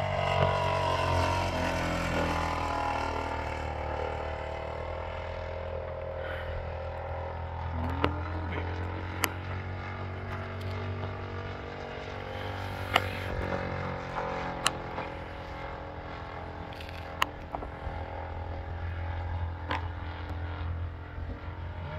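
Engine of a quarter-scale radio-controlled Spitfire model plane droning steadily in flight overhead, loudest in the first couple of seconds and then a little softer. A few sharp clicks come through now and then.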